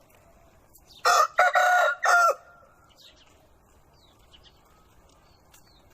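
A rooster crowing once, a single cock-a-doodle-doo of about a second and a quarter beginning about a second in, broken into three linked parts.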